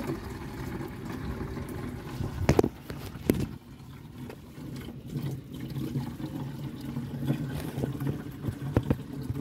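Water running from an outdoor tap into a plastic watering jug, filling it. There are two sharp knocks about two and a half and three seconds in.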